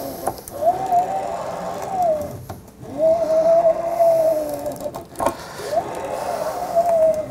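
Original Prusa i3 MK2 axis pushed back and forth by hand on freshly lubricated smooth rods, its belt and unpowered stepper motor giving a whirring whine that rises and falls in pitch with each stroke. There are three strokes, with a short click between two of them.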